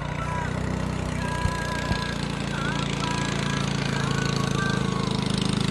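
Small engine running steadily with an even, rapid chugging beat, growing a little louder toward the end.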